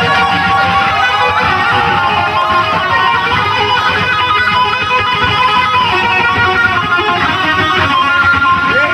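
Electric guitar music: a lead guitar playing sustained notes with pitch bends and vibrato over a full backing.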